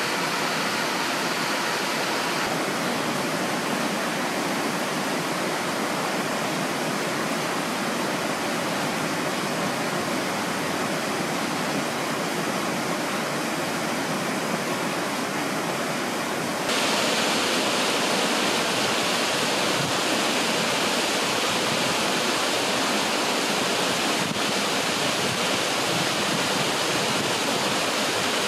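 Steady rain, an even hiss. About seventeen seconds in it changes abruptly to a louder, brighter rush of the shallow river running over stones.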